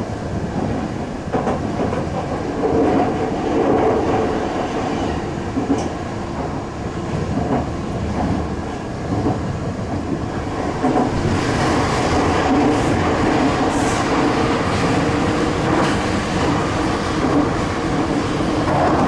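Sendai subway 2000 series linear-motor train running at speed, heard from behind the driver's cab: a steady rumble of steel wheels on rail with a few humming tones. About eleven seconds in, as the train enters a tunnel, the running noise grows louder and hissier.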